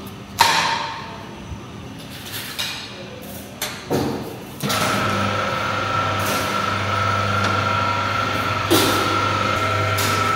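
A metal skimmer clanks against the steel rim of a large pulao pot with a short ring, followed by a few lighter knocks. After about four and a half seconds a steady machine hum with a constant whine sets in and carries on, with one more knock near the end.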